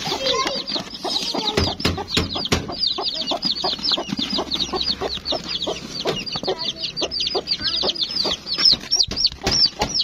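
Chicks peeping rapidly and without pause, several short high falling peeps a second, with a hen clucking lower among them and scattered scuffling knocks.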